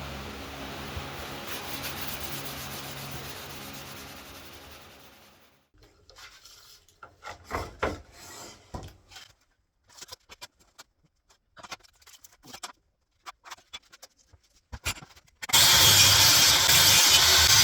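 Short, scattered scraping and rubbing strokes on wood, as from hand-working a piece, after a steady low hum fades out. Near the end a loud, even power-tool noise starts abruptly.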